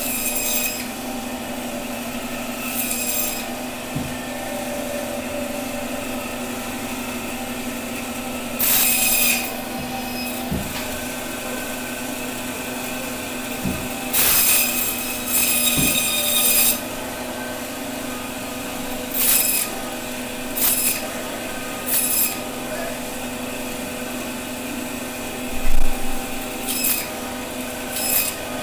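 Electric meat band saw running with a steady hum, its blade cutting through a large aair catfish. About ten cuts come as short, louder, hissy rasps as the blade goes through flesh and bone.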